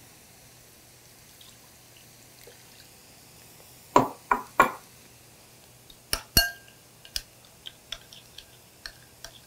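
Wine poured from a small glass into a glass mixing bowl of chopped herbs and garlic: three quick glugs about four seconds in, then sharp ringing glass clinks about six seconds in and a run of light ticks and taps.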